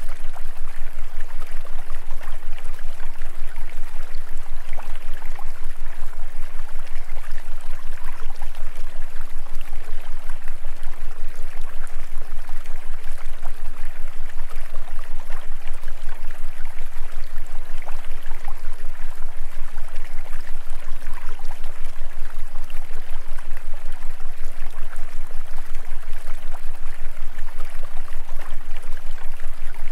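Steady sound of running water, like a flowing stream, with a constant deep hum underneath.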